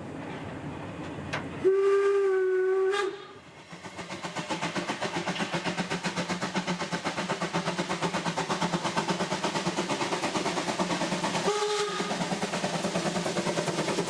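Narrow-gauge steam locomotive sounding its steam whistle: one long blast about two seconds in and a short one near the end. Between the blasts its exhaust chuffs in a fast, even rhythm as it works uphill under steam.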